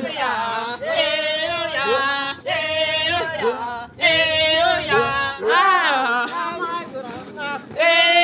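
Maasai men singing a chant as they dance, voices holding and bending notes in phrases of one to two seconds with short breaks between.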